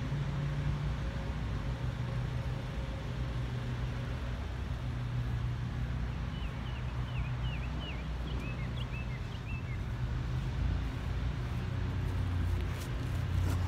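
Steady low outdoor rumble of distant road traffic with a faint steady hum. A quick run of high chirps, like a small bird's, comes around six to ten seconds in, and a few soft clicks and rustles come near the end.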